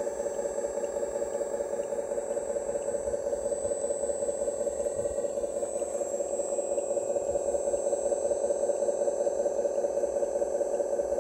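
Scale radio-controlled hydraulic dump truck running with a steady mid-pitched mechanical whine and a faint, thin high whistle.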